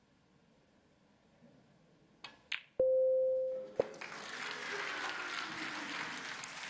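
Snooker balls clicking as a shot is played, followed by a loud steady electronic beep lasting about a second. Another click follows, and then the crowd breaks into applause and cheering as the pot goes down.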